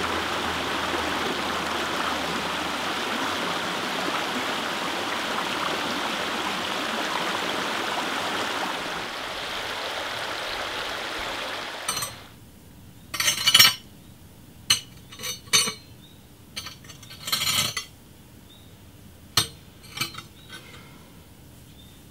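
A rocky stream with a small waterfall running in a steady rush of water, which cuts off suddenly about twelve seconds in. After it, a quieter background with scattered sharp clicks and knocks.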